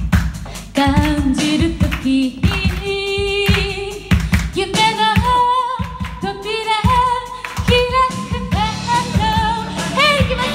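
A woman singing a pop song into a microphone over musical accompaniment with a steady drum beat. Her voice comes back in about a second in, with vibrato on the held notes.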